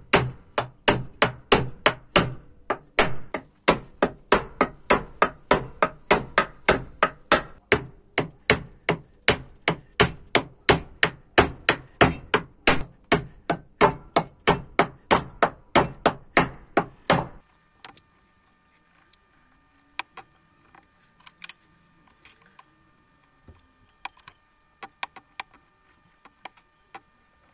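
Hammer driving nails into sweet chestnut boards: a steady run of sharp blows, about three a second, that stops suddenly about 17 seconds in, leaving only a few faint clicks.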